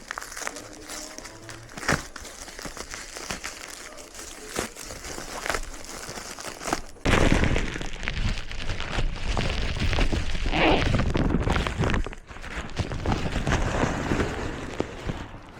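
Packaging being handled during an unboxing: crinkling and rustling with small clicks, then from about seven seconds in a louder stretch of rustling and heavy handling rumble.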